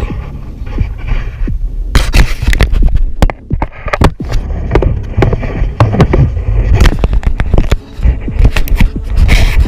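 Handling noise on a GoPro camera housing: a low rumble of wind and handling on the microphone, then, from about two seconds in, a dense run of knocks and scrapes as a hand rubs and grips the housing.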